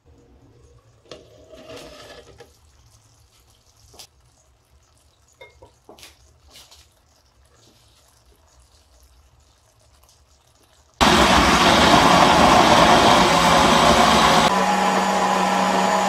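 Electric blender starts suddenly about two-thirds of the way in and runs steadily, puréeing cooked tomato, onion and cashew gravy; its motor note steps up in pitch partway through. Before it there are only faint clicks and knocks.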